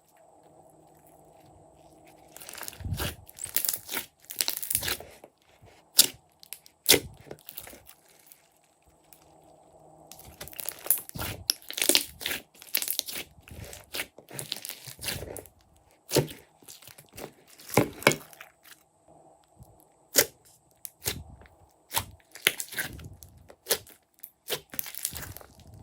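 Glossy slime being worked by hand, giving irregular crackling and sharp clicking pops in clusters, with short quiet pauses between.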